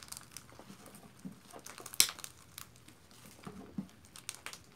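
Yellow popcorn slime with styrofoam pieces mixed in, kneaded and stretched by hand: irregular crackles and crunches from the styrofoam, which is super crunchy. One sharper, louder crack comes about two seconds in.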